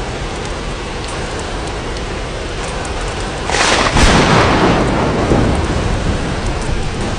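Steady rain hiss, with a thunderclap about halfway through: a sudden loud crack that fades into a low rumble over a couple of seconds.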